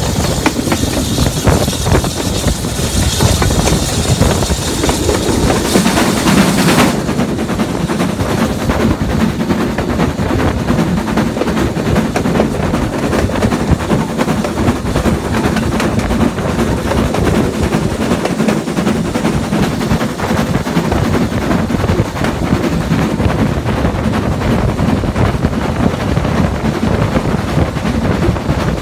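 BR Standard Class 4 2-6-4T steam locomotive 80097 working hard up a gradient with the regulator wide open, its exhaust beats coming fast and sharp in a rapid, steady rhythm. Wind hiss on the microphone covers the first several seconds and cuts off suddenly about seven seconds in.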